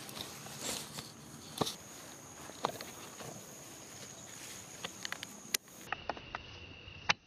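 Footsteps and rustling in grass and ground cover, with a few sharp snaps and clicks, over a steady high-pitched insect drone. Near the end the background abruptly changes to a lower steady whine.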